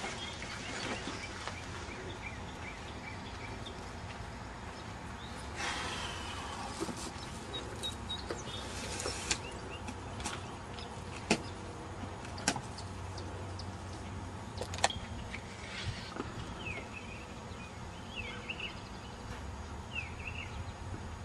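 Outdoor background noise with a steady low rumble, a few sharp clicks or knocks around the middle, and short bird chirps near the end.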